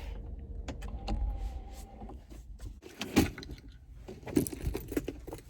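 Sounds of getting out of a parked car: a brief steady whine about a second in, then knocks and clunks, the loudest about three seconds in.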